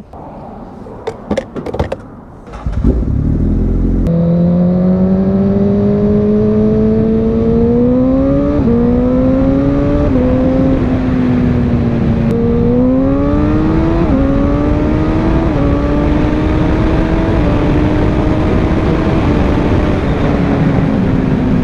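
Honda CBR1000RR inline-four pulling away after a few clicks and knocks, its pitch climbing and then dropping in steps as it shifts up through the gears on a quick shifter, with strong wind rush.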